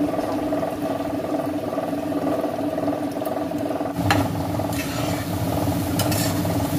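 A steady hum runs throughout. About four seconds in, a spatula starts stirring fried onions and spices in a non-stick pot, scraping, with light sizzling.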